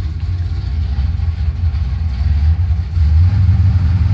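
1979 Chevy C10's built 350 V8 idling from inside the cab, warming up just after a cold start following a long sit. A steady low rumble that gets slightly louder about three seconds in.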